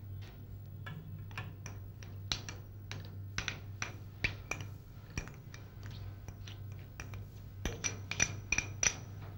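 Plastic spoon scraping and tapping against a glass bowl as soaked urad dal is spooned into a stainless-steel mixer jar: a run of irregular light clicks and clinks, thicker near the end, over a steady low hum.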